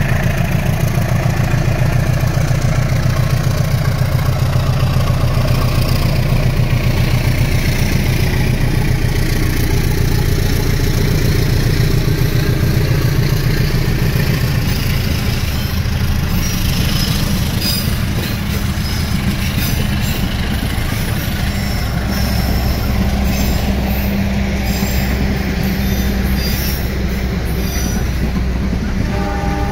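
A CC201 diesel-electric locomotive (GE U18C) pulls a passenger train out of a station, its diesel engine droning steadily. From about halfway through, the passing coaches add many sharp clicks from the wheels on the rails.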